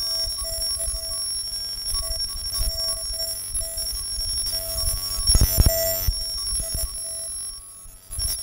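Live generative electronic sound from an algorithmic system modelled on the Mandelbox fractal: two steady high tones and a mid tone pulsing on and off over a fluttering low rumble. A dense, louder burst comes about five seconds in, and the sound drops away briefly shortly before the end.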